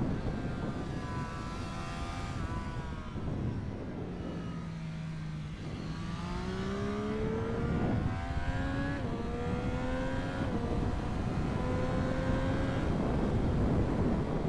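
Triumph Street Triple 765 RS inline-three engine on the move, with wind over the microphone. The revs fall over the first few seconds and sit low briefly, then climb again from about six seconds in, with a couple of short dips in pitch at upshifts, and hold steadier near the end.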